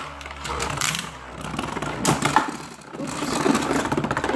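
Plastic Beyblade spinning tops and their parts clattering and scraping, with a run of irregular clicks and knocks.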